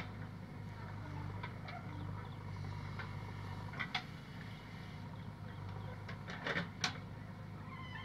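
Diesel engine of a JCB backhoe loader running steadily under load as the hydraulic arm swings and the bucket digs into mud, with the tractor idling alongside. A few sharp knocks and clanks stand out: one at the start, one about four seconds in, and a cluster near seven seconds.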